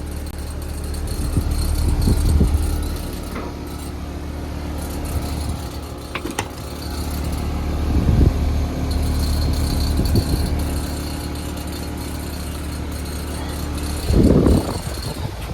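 Heil heat pump outdoor unit running in heating mode: a steady compressor hum and fan, with its faulty high pressure switch bypassed. Three louder rumbling swells of noise come about two, eight and fourteen seconds in.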